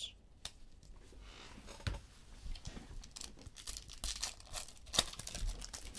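Trading cards being handled and flipped through by hand: faint rustling and sliding with light clicks, a few sharper flicks around two and five seconds in.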